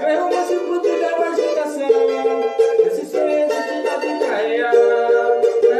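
Cavaquinho picked with a plectrum in samba style: a quick run of bright plucked notes mixed with chords, with no bass underneath.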